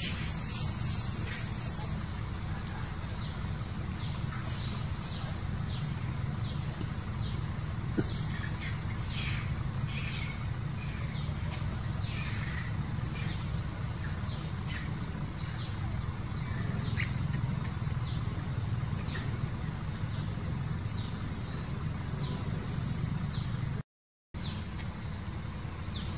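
Birds chirping in the surrounding trees: many short, high chirps, each falling in pitch, repeated throughout over a steady low rumble. A high hiss runs through the first couple of seconds, and the sound cuts out briefly near the end.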